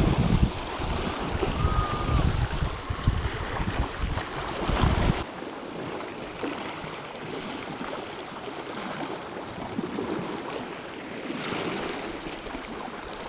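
Sea waves washing over shore rocks, with wind rumbling on the microphone. The rumble cuts off abruptly about five seconds in, leaving a softer, steady wash of sea.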